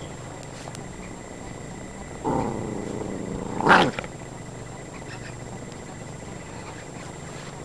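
Norfolk terriers at play, one giving two short calls: a brief whine-like growl about two seconds in, then a louder, sharp yelp about a second and a half later.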